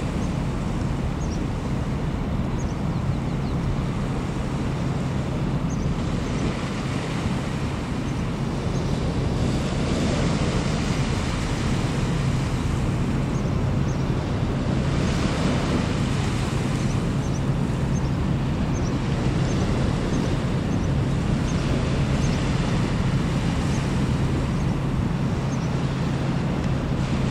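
Wind rushing on the microphone over a steady low drone from the general cargo ship's engine as she approaches, growing a little louder about halfway through. Faint high chirps come through now and then.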